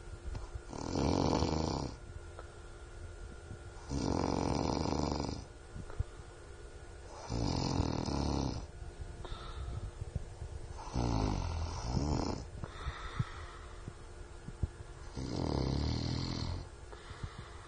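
A sleeping man snoring: five long snores, each about a second and a half, coming at a regular rhythm roughly every three and a half seconds.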